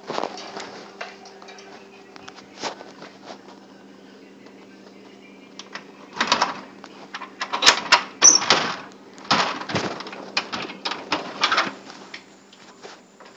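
A door being opened and handled: scattered clicks and a cluster of louder clattering knocks in the second half, over a low steady hum.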